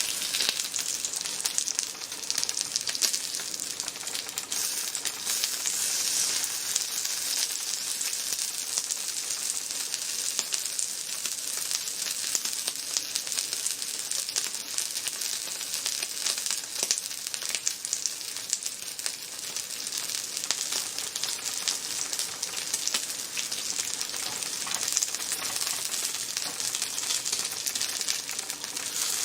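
Food sizzling on a hot lava-stone grill plate: a steady frying hiss with many small crackles.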